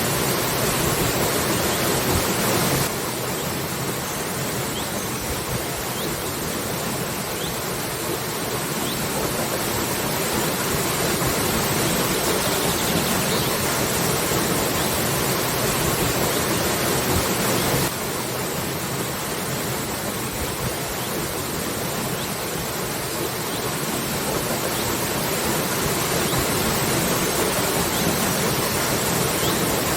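Waterfall: a steady rush of falling water. Its level drops suddenly about three seconds in and again around eighteen seconds, each time slowly building back.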